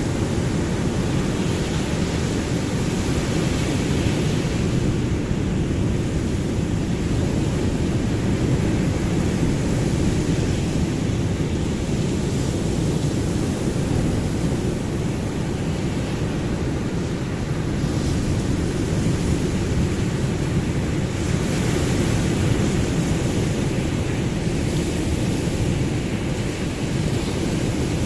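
Ocean surf: a steady, dense rush of waves, heaviest in the low range, swelling slightly a few times without any single breaker standing out.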